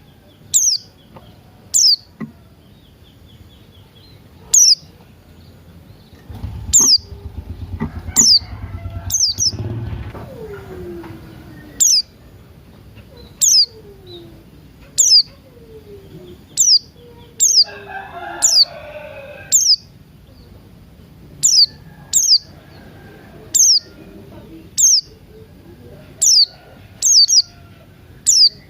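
A pleci buxtoni white-eye chirping steadily, a sharp high downward chirp about once a second. Lower downward-gliding whistles come in through the middle, with a short burst of other bird calls a little after halfway.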